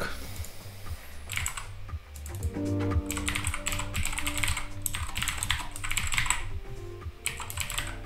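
Typing on a computer keyboard in quick bursts of keystrokes, with background music underneath.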